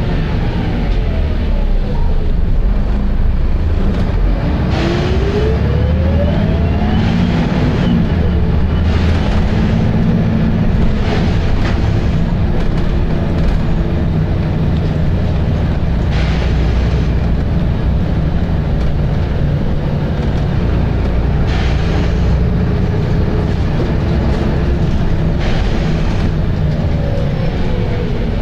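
Volvo B7RLE single-deck bus's diesel engine running hard, with a whine rising in pitch about five seconds in as it pulls away. Several short air hisses come at intervals.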